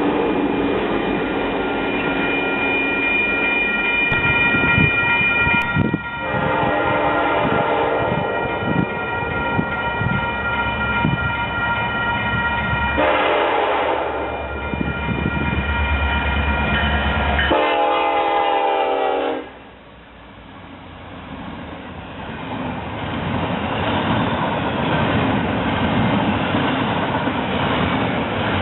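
Train running along the track, with its locomotive horn sounding three times in stretches of a few seconds each. After the last blast the train noise drops off sharply, then builds up again.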